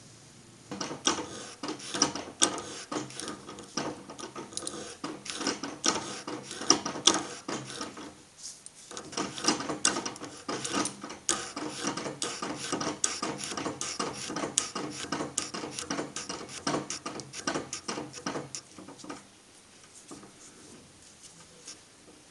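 Beaver VBRP milling machine's end mill cutting a cast-aluminium part: a fast, irregular clicking chatter. It breaks off briefly about eight seconds in and dies away near the end.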